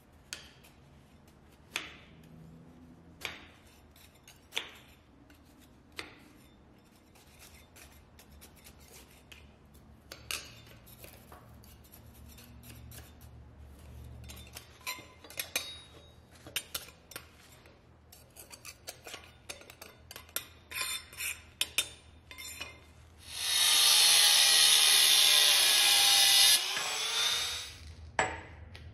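Sand being broken off freshly cast bronze pieces from a sand mold: sharp taps about every one and a half seconds, then scattered clinks and crumbling as the sand cake falls apart. Near the end a power tool runs loudly on the bronze casting held in a vise for about three seconds, its pitch sagging, then runs quieter for a moment and stops.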